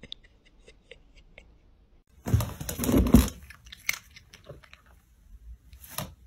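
Cardboard crunching and scraping as a cat moves about inside a cardboard box and pushes through a hole in its lid. There is a loud burst about halfway through and a shorter one near the end.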